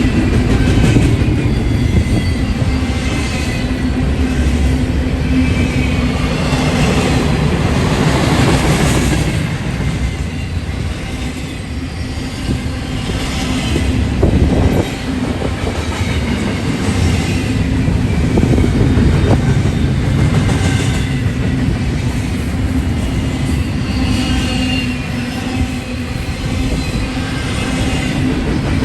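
Train rolling past at trackside: a steady rumble with wheels clattering over the rail joints and a faint high wheel squeal at times.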